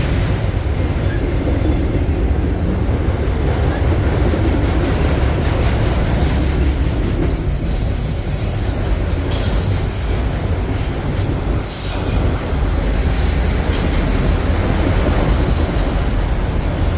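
Freight train of autorack cars rolling slowly past, a steady heavy rumble of wheels on rail with brief sharper wheel noises now and then.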